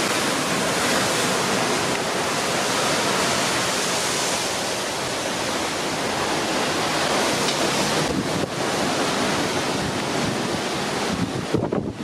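Steady rush of wind and rough open sea churning alongside a moving ship, with wind buffeting the microphone. The rush dips briefly about eight seconds in and turns gusty near the end.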